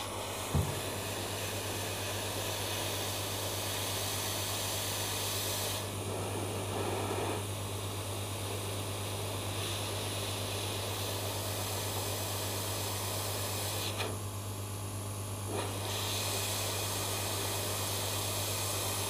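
Hot air rework gun blowing a steady hiss over a constant low hum as it melts the solder to mount a replacement memory IC on a set-top box board; the hiss drops away for a moment about fourteen seconds in.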